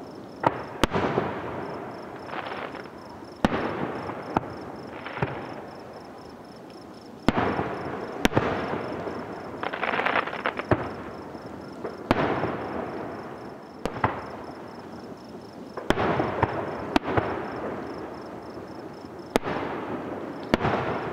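Fireworks display: aerial shells bursting one after another, about a dozen sharp bangs at uneven intervals, each followed by a rolling echo that dies away.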